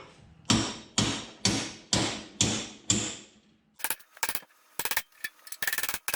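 A hammer striking steel six times, about two blows a second, each blow ringing. About four seconds in come a few seconds of irregular, rapid crackling bursts.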